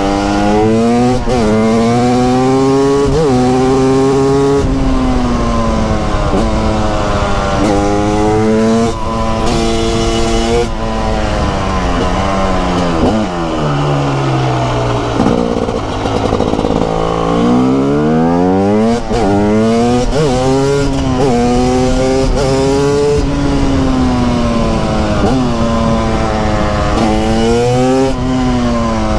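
TM SMR 300 supermoto's 300 cc single-cylinder two-stroke engine under way, its pitch climbing and then dropping sharply again and again as it accelerates and shifts up through the gears. About halfway through it winds down through a long deceleration, then pulls hard again.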